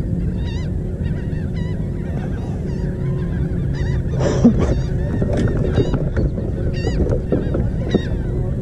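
Birds calling over open water, many short wavy notes repeated again and again, over a steady low rumble of wind and water. A brief louder noise stands out about four seconds in.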